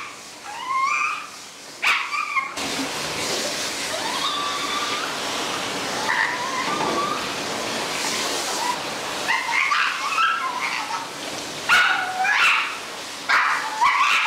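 Pekingese dog whining and yelping again and again, protesting the bath, which it keeps trying to bite at. About two and a half seconds in, the steady hiss of a hand-held shower sprayer starts and runs under the cries.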